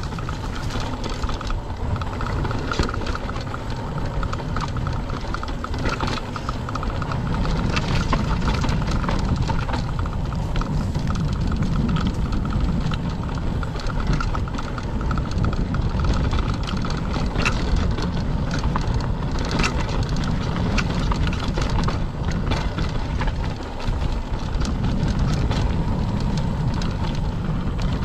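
Mountain bike riding down a dirt trail: a steady low rumble of tyres on dirt and rushing air, with frequent clicks and rattles from the bike over the bumps.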